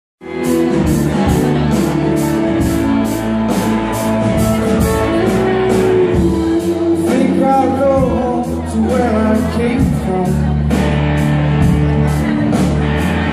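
Live rock band playing: electric guitars, a drum kit with a steady cymbal beat, and singing.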